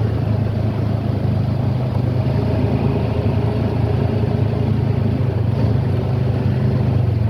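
Honda Pioneer UTV engine running at a steady, light cruise, heard from aboard the moving vehicle: a continuous low drone that holds one pitch throughout.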